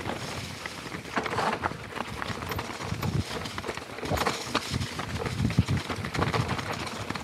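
Mountain bike riding down a rocky, leaf-covered trail: tyres rolling over leaf litter and loose stones, with irregular knocks and rattles as the bike jolts over rocks.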